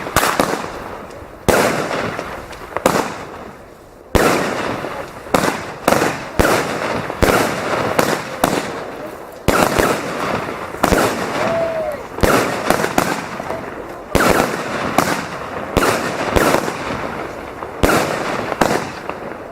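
Fireworks going off in an irregular series of sharp bangs, roughly one a second, each trailing off into crackle.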